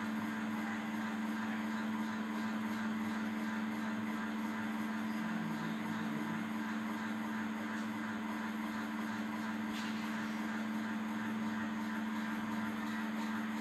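A steady low hum, like a motor or electrical appliance running, with a faint tick about ten seconds in.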